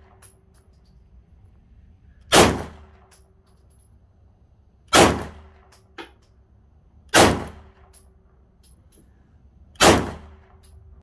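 Four 9mm shots from a Ruger P85 semi-automatic pistol, fired slowly about two to three seconds apart, each a sharp crack with a short decaying tail.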